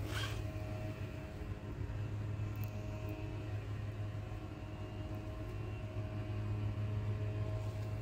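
Changhong CSC-18T1 split air conditioner's indoor unit running: a steady low hum with a few faint, higher steady tones over it.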